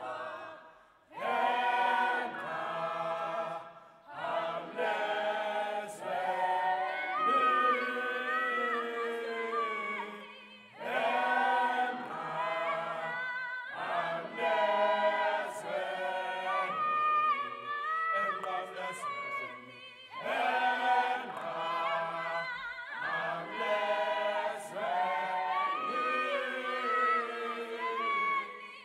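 A youth choir singing a cappella in harmony, in phrases separated by brief breaks.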